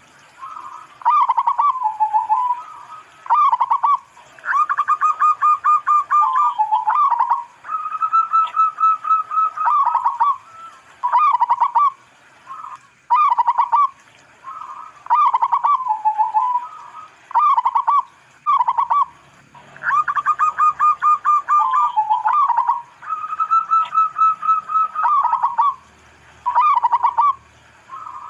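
Zebra dove (perkutut) cooing in repeated phrases every second or two: some short double notes, others longer runs of rapid staccato coos that drop to a lower note at the end.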